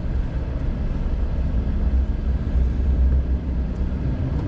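Car engine and road noise heard from inside the cabin while driving slowly: a steady low rumble, with a faint engine hum that comes in partway through and creeps up in pitch.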